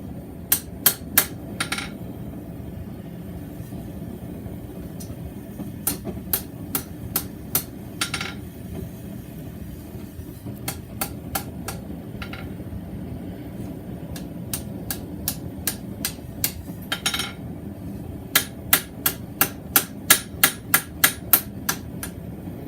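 Hand hammer striking a mild-steel bar on an anvil, straightening and shaping it in runs of quick blows with short pauses between. The blows come fastest and most evenly near the end. A steady low hum runs underneath.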